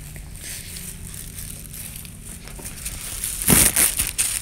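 Crackling, rustling handling noise as the camera is moved about, loudest with sharp clicks about three and a half seconds in, over a steady low hum.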